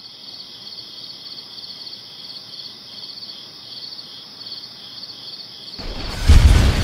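Crickets chirping in an even, steady rhythm, a few chirps a second. About six seconds in, a sudden loud boom with a deep rumble cuts in and is the loudest sound.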